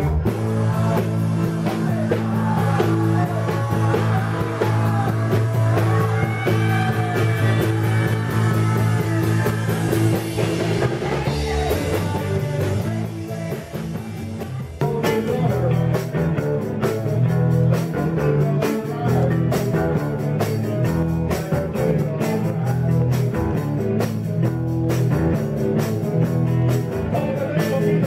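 Rock band playing live on stage: electric guitars, bass and drums, loud and steady, with an abrupt jump in the music about halfway through.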